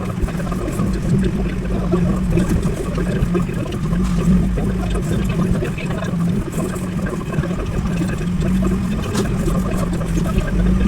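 Diesel engine of a JCB 540-170 telehandler running steadily: a low drone that wavers slightly in pitch, with rough mechanical noise over it.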